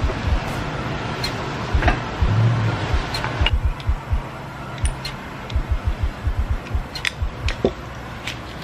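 Scattered sharp clicks and light knocks of small metal parts being handled, as a convertible top's hydraulic pump motor assembly is taken apart, with irregular low thumps throughout.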